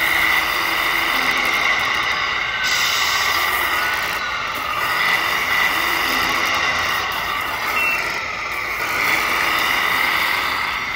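Simulated diesel truck engine from the sound unit of a radio-controlled Kenworth W900 scale truck, running steadily with the level swelling and easing a few times as the truck creeps along.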